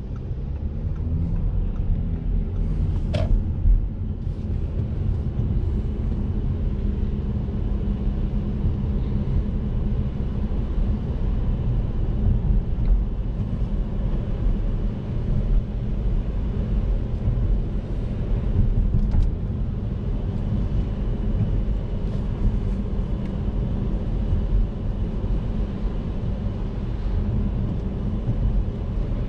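Audi A7 3.0 TDI V6 diesel driving at about 55 km/h on a wet road, heard from inside the cabin: a steady low engine and road rumble with tyre noise over it. A short sharp click about three seconds in.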